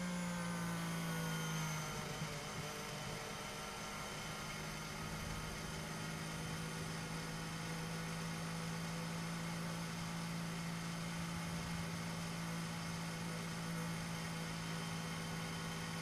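Mercedes W12 Formula One car's 1.6-litre turbocharged V6 hybrid engine, heard from the onboard camera, running steadily. Its pitch eases down slightly over the first two seconds, then holds.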